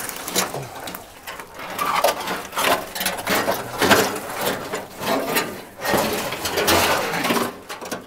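Rusted sheet-metal body panels of an old Chevrolet scraping, creaking and crunching as they are pulled loose and dragged over leaf litter, in a run of irregular scrapes.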